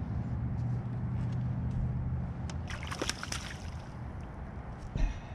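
A small spotted bass splashing at the surface as it is hauled out of the water, a quick cluster of splashes about three seconds in, over a low steady hum. One thump near the end.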